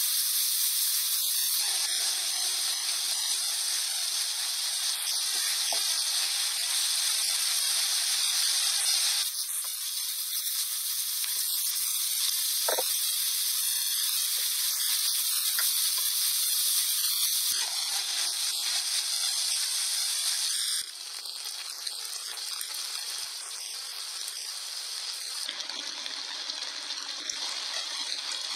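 Chicken and vegetables sizzling in an oiled frying pan as they are stir-fried with a spatula: a steady hiss that steps down in level a few times, with a few light knocks of the spatula on the pan.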